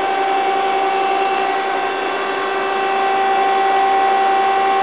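Steady hum with a constant whine from a 1986 Okuma & Howa NC4PS CNC lathe standing powered up between cycles, its hydraulics and electrics running.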